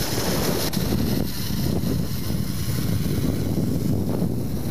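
Steady low rumble of a ride down a zipline: wind buffeting the microphone, mixed with the trolley running along the cable.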